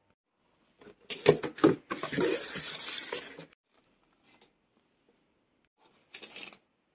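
Several sharp clicks and knocks, then a noisy scrape lasting about a second and a half. A second short cluster of clicks comes near the end.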